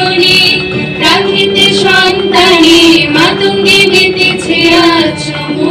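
A song: singing over a steady, sustained low accompaniment note.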